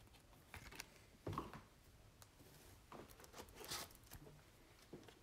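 Faint handling noise: a few short rustles of trading cards in plastic sleeves being moved and set down, the clearest a little before four seconds in.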